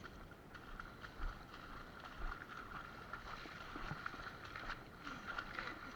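Water splashing and sloshing as a runner and dog wade through a stream, with scattered faint knocks.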